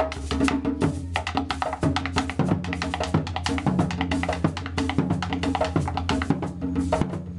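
Background music with a busy drum and percussion beat over a steady bass line.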